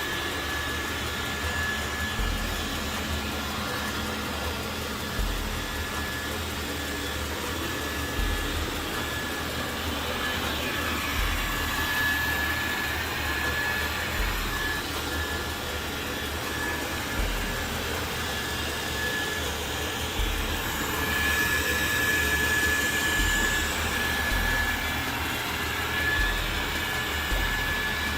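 Dreame Bot L10 Pro robot vacuum running in vacuum-and-mop mode: a steady motor whir with a thin, constant high whine.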